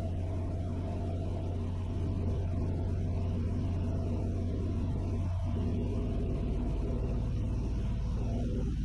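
Vans RV-6A's piston engine and propeller droning steadily in the cockpit at reduced power on final approach.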